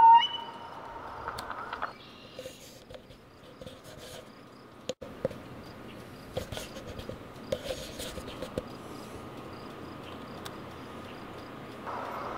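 Outdoor background noise with a faint, evenly repeated high-pitched insect chirping and a few scattered clicks; the sound drops out for an instant about five seconds in.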